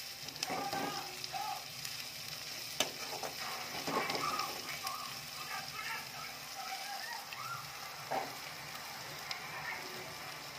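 Sliced onions and spices frying in oil in a steel pan, sizzling steadily, while a metal spatula stirs and scrapes the pan, with a few sharp clacks of the spatula against the metal.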